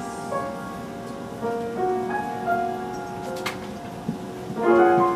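Solo piano playing the slow introduction to a ballad, single notes and chords ringing on, with a louder chord near the end just before the voice enters.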